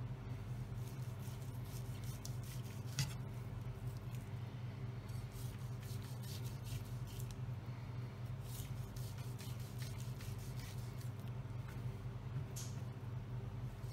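Chef's knife slicing through a roast leg of lamb and scraping and tapping on a wooden chopping board in short, scattered strokes, with one louder knock about three seconds in, over a steady low hum.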